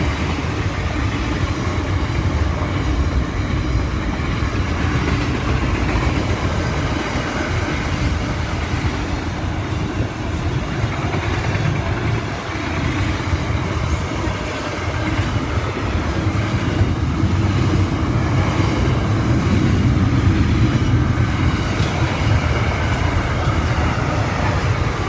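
Container wagons of a long freight train rushing past close by: a steady heavy rumble and hiss of steel wheels on the rails, with some wheel clatter.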